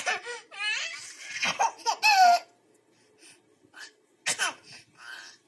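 Ten-month-old baby laughing and squealing in high-pitched bursts, loudest about two seconds in, followed by a few short breathy sounds.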